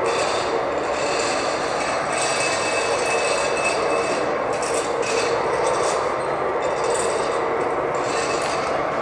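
Steady loud mechanical noise: a constant rumble and hiss whose upper part swells and fades unevenly.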